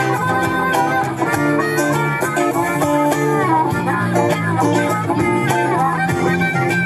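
Live band playing loudly through a PA: electric guitar and bass guitar over a steady drum-kit beat, with a lead line bending in pitch about halfway through.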